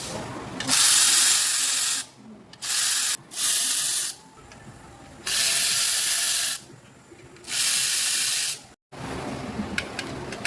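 Pressurised spray hissing in five loud bursts, each about a second long, with short pauses between them, during work on a car engine.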